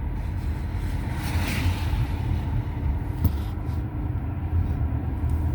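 Steady low rumble of a car driving, engine and tyre noise heard from inside the cabin, with a brief swell of hiss about a second and a half in and a single click a little past three seconds.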